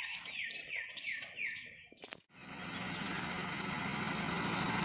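Short falling calls from a bird, repeated a few times in the first two seconds. About two seconds in they give way to the steady hum of a motor scooter riding along a paved road, with road and wind noise, growing slightly louder.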